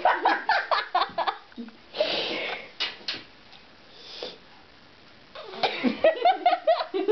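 Cat hissing in two short bursts, a longer one about two seconds in and a shorter one about four seconds in: a defensive warning at a face pushed close to it.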